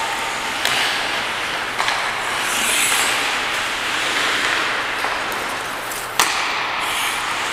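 Hockey skates carving and scraping on rink ice in a steady hiss, with a few sharp knocks, the loudest about six seconds in.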